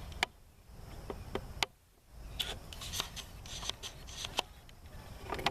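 Hand-handling noises: scattered sharp clicks and rubbing as paracord and a wooden stick are worked to set the trigger perch of a snare.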